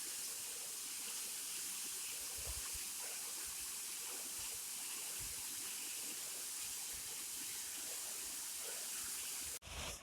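Waterfall rushing: a steady hiss of falling water, broken off briefly near the end.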